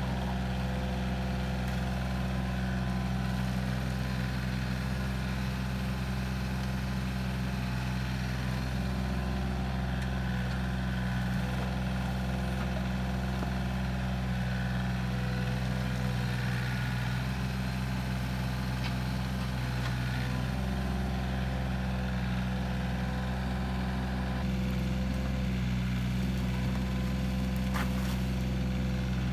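Compact excavator's diesel engine running steadily while its bucket digs out cattails, a constant low hum.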